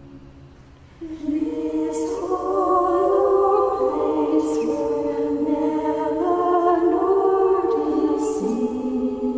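A choir singing in several held, overlapping parts; a phrase dies away and a new one begins about a second in, with sibilant consonants audible now and then.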